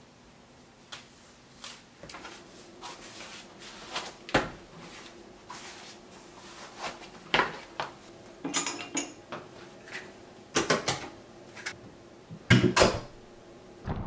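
Irregular clicks, knocks and rustling of getting dressed for a run: a watch strap being fastened on the wrist, then running shoes being pulled on, with a few louder knocks of the shoes near the end.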